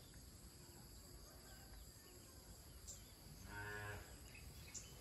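Faint rural quiet with a steady high insect drone. About three and a half seconds in, a cow moos once, briefly and faintly.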